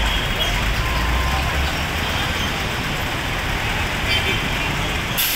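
Steady city traffic at a busy intersection: engines of cars, motorcycles and heavy trucks running together. A deep engine rumble stands out for the first second and a half as a heavy truck moves through.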